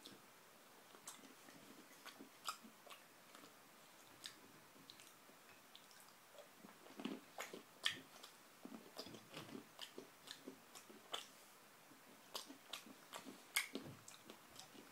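A person chewing and eating bread: faint, scattered mouth smacks and clicks, more frequent in the second half.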